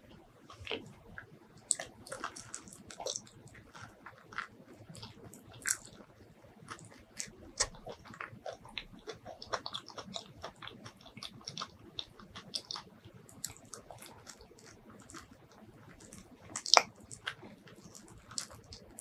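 Close-miked mouth sounds of someone eating soft, creamy mini durian flesh: irregular wet smacks and sticky clicks of chewing, with one much louder click near the end.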